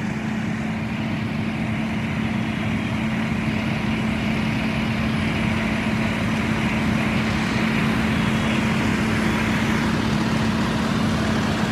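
Fire engine's diesel engine running steadily with a constant hum, growing slightly louder over the first few seconds.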